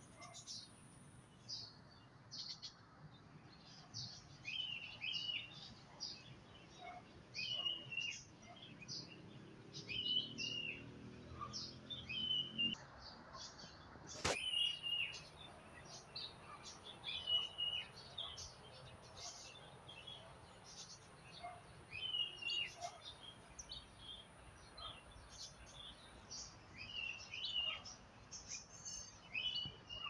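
Small birds chirping and calling: a steady scatter of short high chirps with a clearer two-part call repeated every couple of seconds. A single sharp click sounds about fourteen seconds in.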